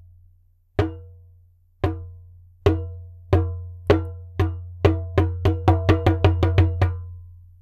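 Wooden clapper strikes used as a transition sound effect: sharp clacks, each with a short ringing tail, that start about a second apart and speed up steadily to about five a second near the end.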